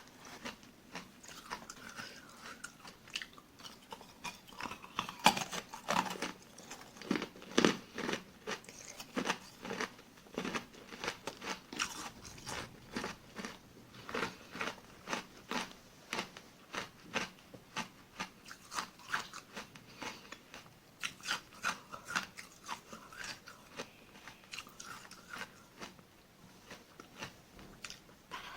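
Close-miked biting and chewing of small tartary-buckwheat ice granules: a run of crisp crunches, about one to two a second, with the loudest bites a few seconds in.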